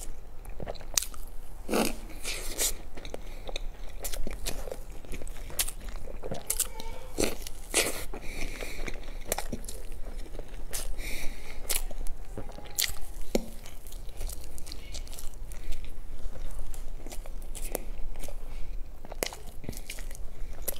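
Close-miked chewing and biting of soft sponge cake: wet, irregular mouth clicks and smacks as the bites are eaten.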